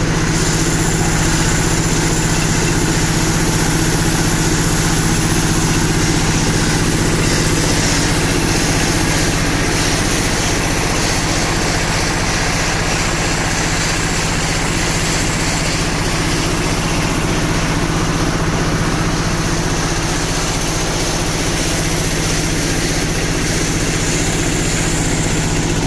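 Silage baling and wrapping machine running: a steady mechanical drone with a constant hum that holds unchanged throughout.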